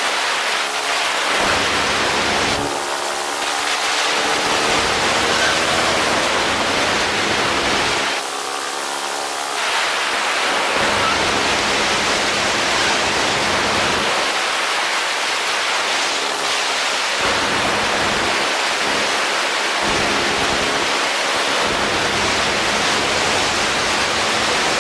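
Steady, loud wind rushing over the camera's microphones in paramotor flight, with the paramotor's engine and propeller running underneath, its note coming through faintly at times.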